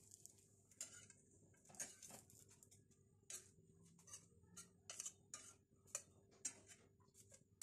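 Faint, irregular clicks of metal kitchen tongs picking fried burger buns off a flat griddle and setting them on a plate, a dozen or so light taps spread out with near silence between them.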